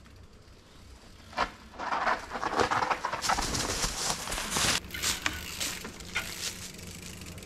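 Mountain bike tyres rolling and skidding down a steep slope of dirt and rock, a rough crunching noise with many small clicks and knocks. It is loudest for a few seconds after the bike gets going, with a single sharp knock just before.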